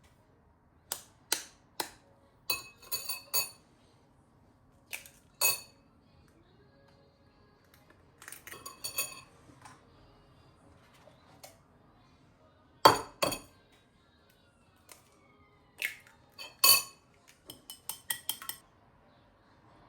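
Dishes and glassware clinking as they are handled and set down, in scattered clusters of sharp, ringing clinks, with a heavier double knock about thirteen seconds in.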